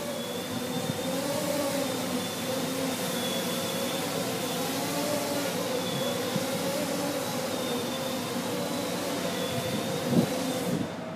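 Quadcopter's electric motors and propellers humming steadily in flight, the pitch wavering gently as the throttle changes. One brief louder sound comes near the end.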